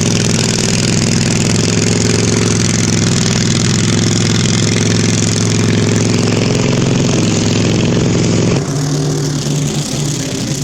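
Briggs & Stratton V-twin engine of a zero-turn mower running loud and steady through an open custom header with no muffler; about eight and a half seconds in the sound drops a little and the note changes as the engine slows.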